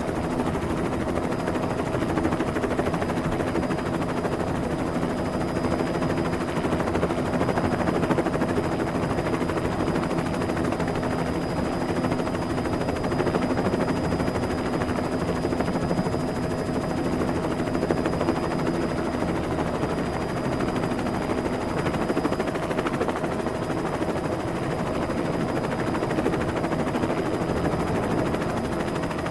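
Helicopter sound effect: a rapid, steady rotor chop with a constant hum under it, unchanging in pitch and loudness.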